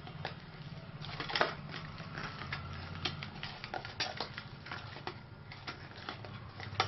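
Hand kneading soft, oiled dough in a stainless steel bowl: irregular squishing and pressing, with scattered clicks and taps as glass bangles and rings knock against each other and the steel.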